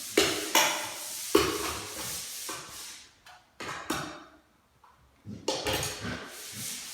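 Metal ceiling-fan hanging bracket and screws clinking and rattling as they are handled and pulled free of the ceiling box: a few sharp clicks in the first second and a half, rubbing, a brief lull, then more clicks and scraping near the end.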